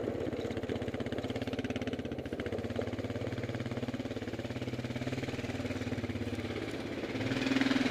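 Small vehicle engine running steadily at low speed, with a brief louder surge about seven seconds in.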